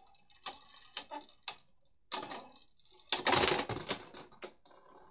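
Beyblade spinning tops clashing in a plastic stadium: sharp clicks about half a second apart, then a longer rattling clatter about three seconds in, the loudest sound, and a few fainter clicks after it.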